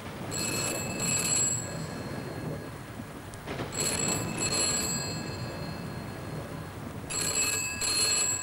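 Telephone ringing with an incoming call: three double rings (ring-ring, pause), about three and a half seconds apart.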